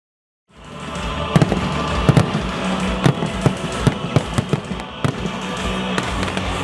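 Fireworks going off: an irregular run of sharp bangs and cracks, several a second, over music playing.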